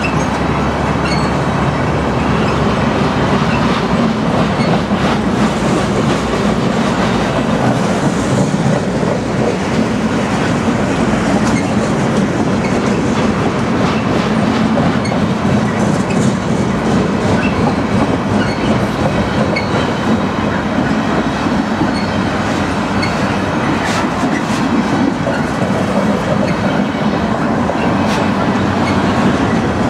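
Freight train's loaded flatcars rolling past close by: a steady, loud rumble of steel wheels on rail, with a few sharp clicks as wheels cross rail joints.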